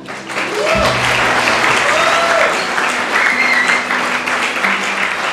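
An audience of guests clapping, starting about a third of a second in and going on throughout, with background music coming in underneath shortly after.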